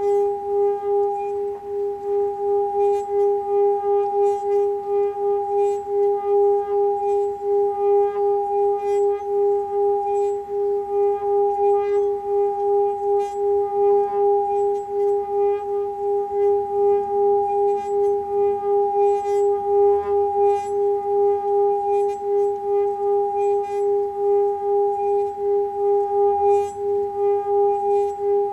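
Hand-held metal singing bowl sung by circling a padded mallet around its rim: a steady sustained tone with a higher overtone above it, wavering in loudness about twice a second as the mallet goes round.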